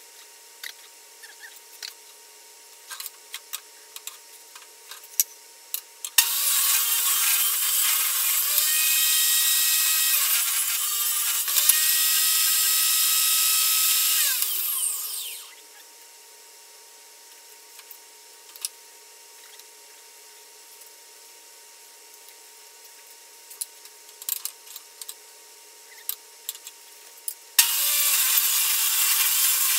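Table saw ripping hardwood boards to width: the saw starts about six seconds in, its pitch dips and wavers as a board is fed through, then winds down to a stop around fifteen seconds. In the quiet stretches boards are handled with light knocks and taps, and the saw starts up again near the end.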